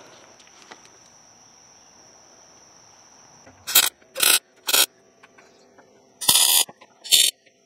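Five short, harsh mechanical bursts from a hand-held tool working at the truck's fender, starting about three and a half seconds in. Before them a faint steady hiss with a constant high insect drone.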